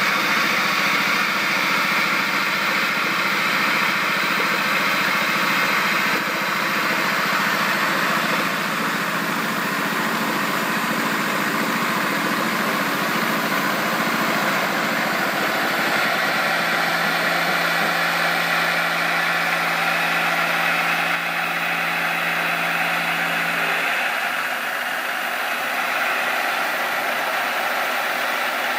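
Milling machine spindle running with a small cutter radiusing the edges of a metal switch plate: a steady motor hum under a hissing cutting noise. The hum and level shift a few times as the tool moves around the plate.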